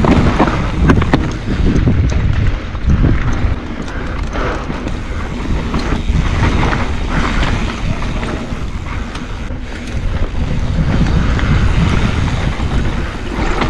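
Riding sound of a mountain bike descending dirt singletrack: wind buffeting the microphone and tyre rumble, with scattered knocks and rattles as the bike goes over rough ground.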